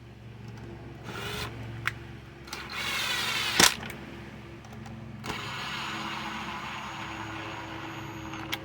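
Stihl MS 170 chainsaw's recoil starter pulled several times, the cord and flywheel whirring briefly with a sharp click about three and a half seconds in. The engine does not fire, as no carburetor is fitted; the pulls are a test of the ignition coil.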